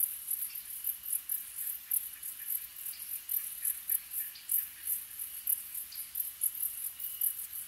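Crickets chirping in a dense, high-pitched chorus, the chirps coming thick and irregular.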